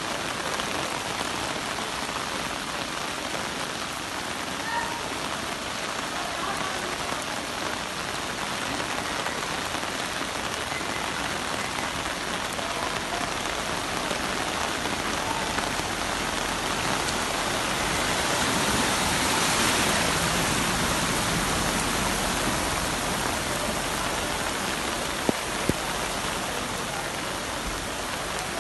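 Heavy rain falling steadily, swelling in strength for a few seconds about two-thirds of the way through, with two sharp knocks near the end.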